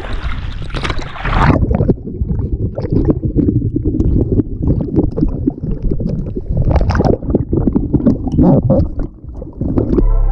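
Water splashing and sloshing around a camera held at the surface of a river, a rough low churning with irregular splashes. A brighter hissing splash comes in the first second and a half, and music begins right at the end.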